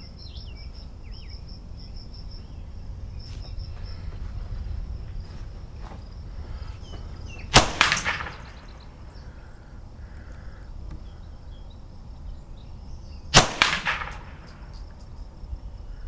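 Two shots from a Marlin Model 60 semi-automatic .22 rifle firing CCI Stinger hyper-velocity rounds, about six seconds apart. Each is a sharp crack with a brief ringing tail, the crack of a supersonic bullet.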